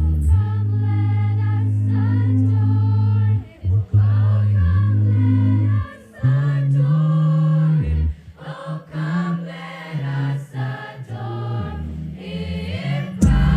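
Girls' school choir singing held chords. There are brief breaks a few seconds in. The singing drops quieter past the middle, then swells back up near the end.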